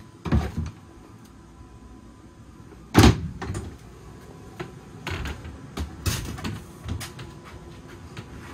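Wooden knocks and thumps of a cabin door and interior joinery being bumped: a pair of thumps near the start, one loud knock about three seconds in, then several lighter knocks.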